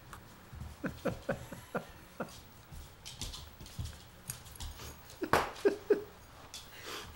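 McNab herding dog spinning after its tail on a wooden floor, with claws pattering and scrabbling. A quick run of short squeaky sounds comes in the first couple of seconds, and a louder scuffle follows about five seconds in.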